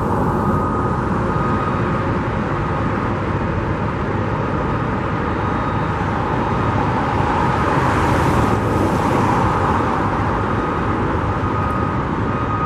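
Steady road-traffic noise, swelling briefly about two-thirds of the way through.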